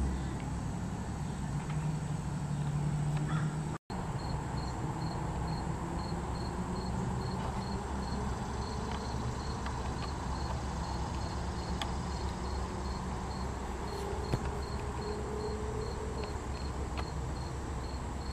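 Outdoor ambience with a low rumble. After a brief dropout about four seconds in, an insect chirps in a steady high-pitched rhythm, about three chirps a second.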